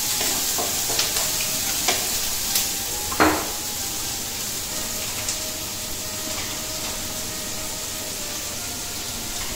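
Vegetables frying with a steady sizzling hiss in a large aluminium pot for fried rice. A few clicks and knocks of cooking utensils come through, one louder knock about three seconds in.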